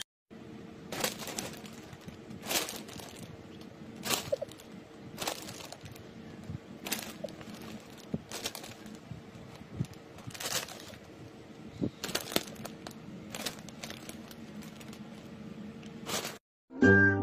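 Foil chip bags crinkling and crackling as a cat lies and rolls on them, in sharp irregular crackles about every second over a faint steady hum.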